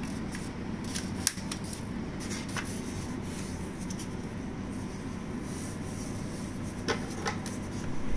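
A sheet of paper being folded and its crease pressed down by hand on a tabletop: soft rustling and rubbing, with a few sharp clicks about a second in and twice near the end, over a steady low hum.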